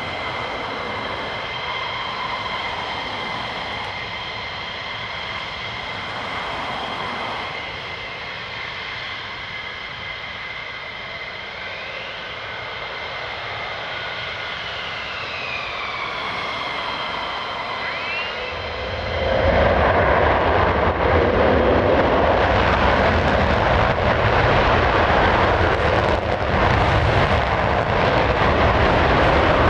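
Twin Pratt & Whitney F100 turbofans of F-15 fighter jets whining at low power while taxiing, the pitch sliding up and down now and then. About 19 seconds in, the afterburners light for the takeoff roll and a much louder, ragged rumble takes over.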